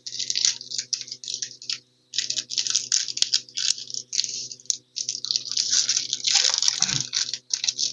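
Foil wrapper of a Pokémon trading card booster pack crinkling and tearing open in irregular rustling bursts, with a brief pause about two seconds in and a soft thump near the end.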